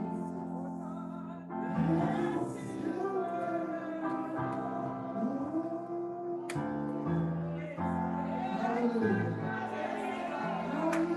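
Slow gospel worship music: held instrumental chords with voices singing a drawn-out melody over them.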